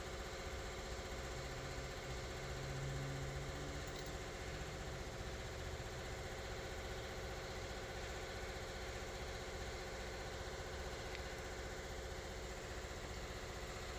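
An engine idling steadily in the background, a constant hum that does not change.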